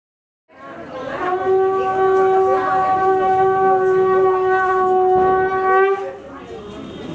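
Conch shell (shankha) blown in one long, steady note that starts about a second in and trails off about a second before the end.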